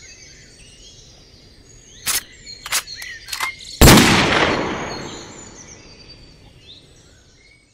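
Birds singing in the background, three sharp clicks about two seconds in, then a single loud bang just before four seconds, whose noisy tail dies away over about three seconds: the sound effect for a head bursting in a spray of blood.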